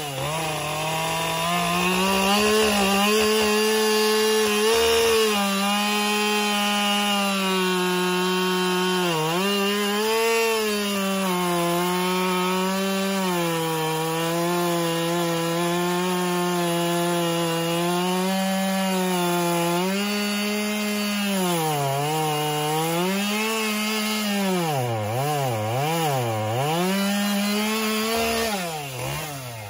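Husqvarna two-stroke chainsaw running at high revs, cutting into a wood carving. Its engine pitch holds mostly steady under load, then drops and climbs again several times in the last third as the throttle is let off and opened up.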